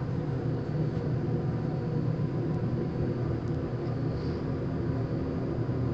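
Elevator cab in motion: a steady low rumble and hum.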